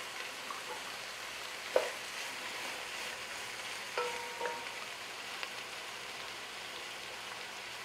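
Chopped onions sizzling as they fry in hot oil, a steady hiss. A stirring utensil knocks against the pan twice, about two seconds in and again about halfway, the second knock ringing briefly.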